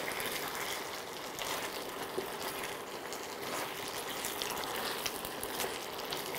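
Thick chilli sauce sizzling and bubbling in a frying pan as fried paneer cubes are stirred through it with a silicone spatula, a steady hiss with scattered small ticks and clicks.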